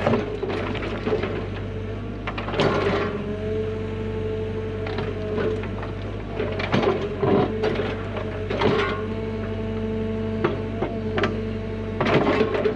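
Hyundai HX85A excavator running under load with a steady engine hum and hydraulic whine, its bucket knocking and scraping against rock several times while digging out a trench.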